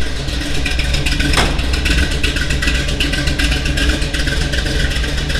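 Chevrolet C10 pickup's engine idling steadily, not long after being started from sitting about a week. There is a single sharp knock about a second and a half in.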